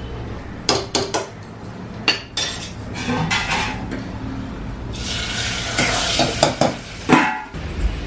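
Steel spoon and ladle clinking against steel pots and a spice box as a tempering of cumin and dried red chilli in ghee is made for khichdi. About five seconds in there is a stretch of sizzling as the tempering is poured into the khichdi.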